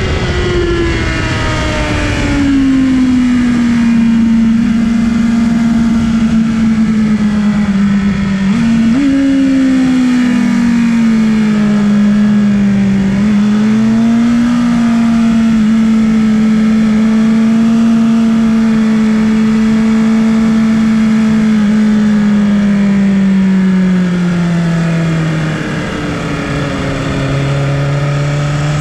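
2019 BMW S 1000 RR M Package's inline-four engine heard from on board at track speed. The revs fall over the first couple of seconds, jump briefly about nine seconds in, hold fairly steady for a long stretch, drop again near the end and then start climbing.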